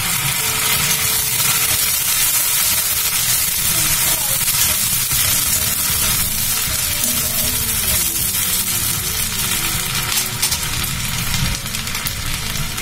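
Ginger-garlic paste and turmeric sizzling steadily in hot butter and oil in a kadhai, stirred with a metal spatula.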